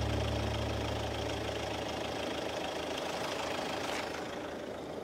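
An engine idling steadily, with a low hum that slowly fades.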